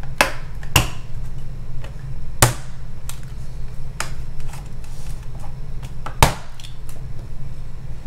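Plastic retaining clips of an ASUS Q503 laptop's bottom cover snapping loose as the cover is pried off by hand: four sharp snaps, the loudest about two and a half and six seconds in, with fainter clicks between.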